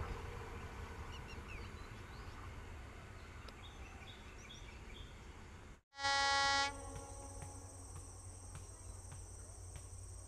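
A train moving away along the track, its rumble fading, with a few faint high chirps over it. After an abrupt cut about six seconds in, a loud held pitched tone lasts under a second and is followed by a steady high insect-like buzz.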